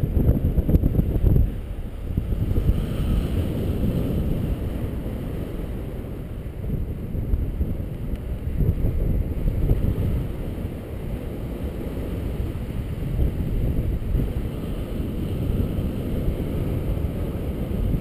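Wind rushing and buffeting over the microphone of a paraglider pilot's camera in flight: a low, unsteady rush that is loudest in the first second and a half, then settles.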